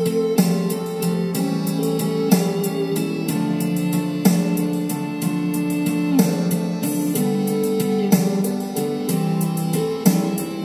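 Instrumental break of a slow ballad backing track: a keyboard melody of held notes over guitar, with a short accent about every two seconds.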